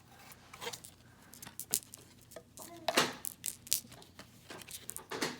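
A small bag crinkling and rustling as it is worked open by hand, with irregular sharp crackles, the loudest about three seconds in.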